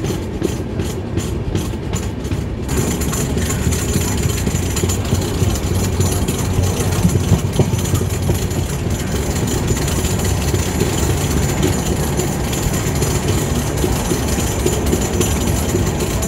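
Passenger train running along the track: a steady rumble of wheels on the rails with a rush of air, the rushing hiss growing fuller about three seconds in.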